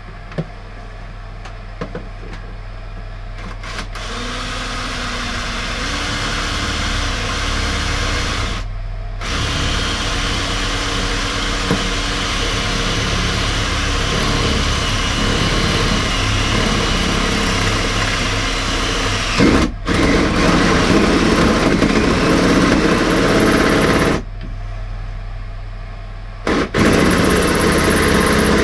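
Power drill boring a hole through the metal top of a fuse board for a cable gland. It runs quietly at first, louder from about four seconds in, and stops briefly three times, with the longest pause near the end.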